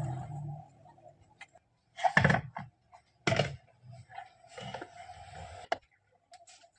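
Repair work on a 1 HP water-pump motor: two solid knocks about two and three seconds in, scattered light ticks and clicks, and a sharp click near the end, as metal parts and tools are handled.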